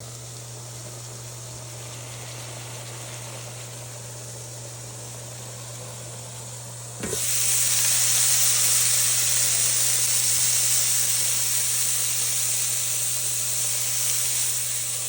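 Food frying in a hot stainless steel pan, sizzling steadily. About halfway through, the sizzle suddenly gets much louder and brighter, then slowly eases off.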